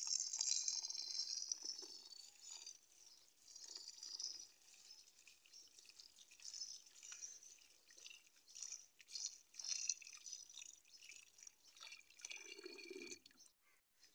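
Tap water streaming and splashing into a steel pot of rice while a hand swirls the grains to wash them. It is loudest in the first couple of seconds, then runs on as an uneven trickle and splash, with a duller slosh near the end.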